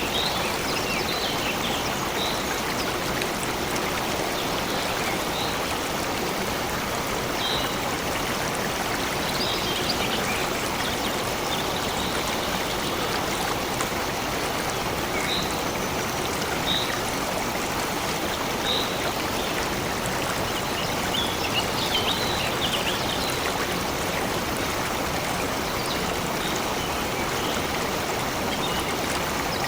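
Stream of water flowing steadily, with short high bird chirps scattered every few seconds.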